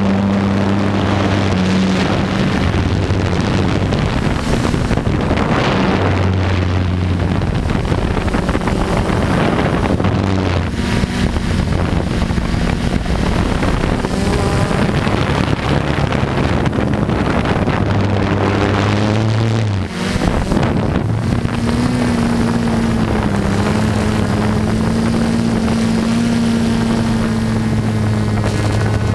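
A quadcopter's motors and propellers running in flight, a steady multi-tone hum whose pitch steps and glides up and down as the throttle changes, dipping briefly about two-thirds of the way through. Wind buffets the microphone.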